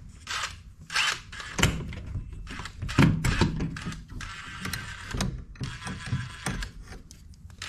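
Clicks, knocks and light metallic clanks from the old storm door closer as its mounting pins are worked loose and it is taken off the screen door.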